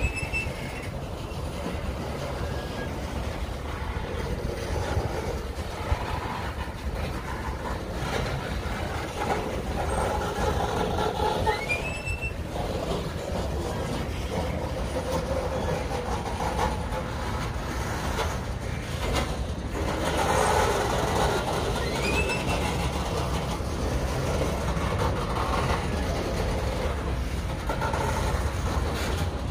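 Covered hopper cars of a Union Pacific freight train rolling past, giving a steady rumble of wheels on rail. Three brief rising high squeaks come through: one right at the start, one near the middle, and one about two-thirds through.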